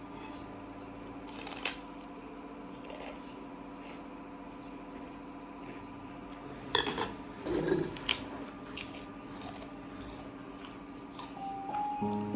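A few sharp clicks and clatters of objects being handled, the loudest cluster a little past the middle, over a steady low hum. Light music begins near the end.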